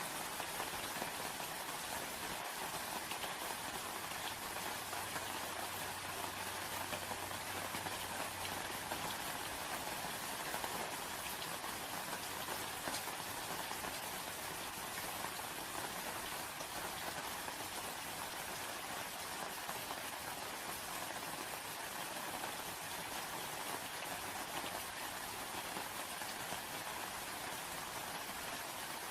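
Rain falling steadily, an even hiss of many drops with no breaks.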